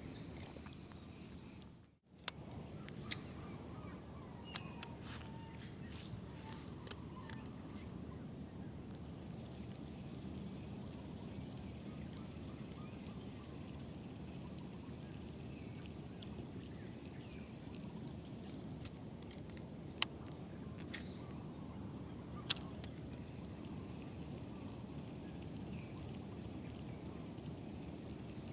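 Steady high-pitched drone of insects over a low outdoor hiss, with a few faint clicks late on.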